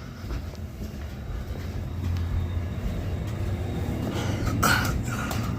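A furnace draft inducer motor running with a steady low hum that grows louder about two seconds in. A short metallic clatter comes near the end.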